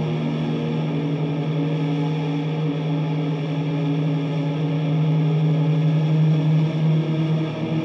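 Electric guitar played through A.C.P effects pedals into a Vox combo amp, holding a sustained, fuzzy drone chord: one steady low note with a noisy wash over it, growing slightly louder about five seconds in.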